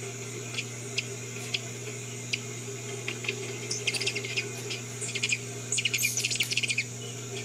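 Ruby-throated hummingbirds chipping and chattering as they chase each other at a feeder: a few single sharp chips, then quick runs of rapid chips, busiest in the second half. Under them runs a steady high drone of insects.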